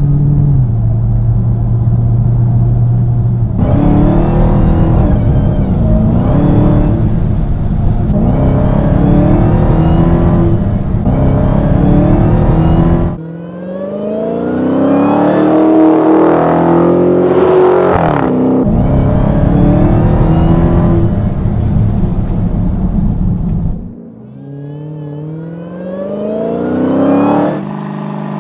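Supercharged 6.2-litre HEMI V8 of a Dodge Charger SRT Hellcat Widebody running steadily, then revving hard again and again with rising engine pitch and a high supercharger whine climbing with it. The sound dips abruptly about halfway through and again near the end before rising once more.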